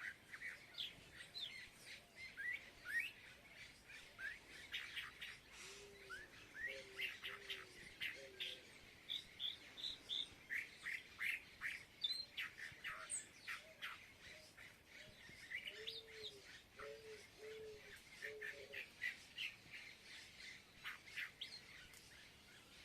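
Many small birds chirping and calling over one another in quick, overlapping short notes. Short series of three to five low, hooting notes come in twice.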